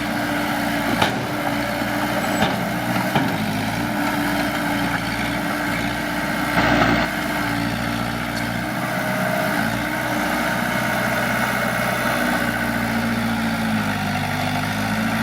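Heavy diesel engine of earthmoving machinery running steadily, its pitch shifting a little, with a few sharp clanks in the first three seconds and a louder knock about seven seconds in.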